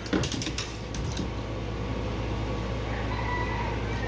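A few light metallic clicks from a Cook's Cat Claw bandsaw blade setter being worked by hand as the blade's teeth are set, bunched together in the first half-second with one more about a second in, over a steady low hum.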